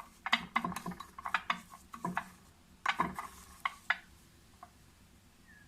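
A spoon stirring ground cumin and olive oil into a paste in a small plate, clinking and scraping against the plate in quick irregular strokes that stop about four seconds in.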